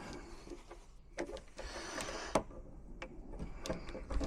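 Lock-picking tools working inside a five-lever lock: faint, irregular metallic clicks and light scraping.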